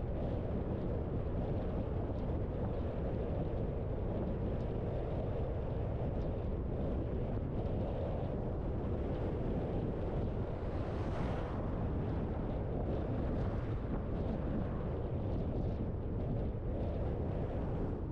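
Steady wind and road noise from a car driving, with a brief louder hiss about eleven seconds in.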